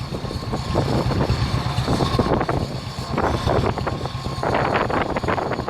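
Motorcycle engine running steadily, with rushing, splashing stream water and wind buffeting the microphone.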